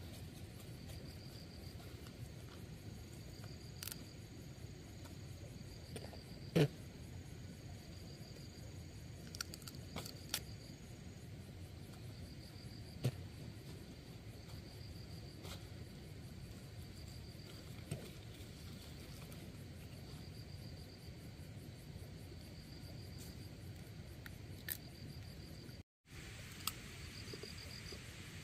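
Insects chirping in repeated high-pitched bouts, with scattered sharp clicks and knocks throughout. The sound cuts out completely for a moment near the end.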